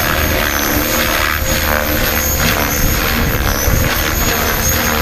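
Electric 600-size RC helicopter (HobbyKing HK-600, 1500 kV motor on 6 cells) in hard aerobatic flight: rotor blades swishing with a steady high whine that wavers slightly in pitch as the load changes.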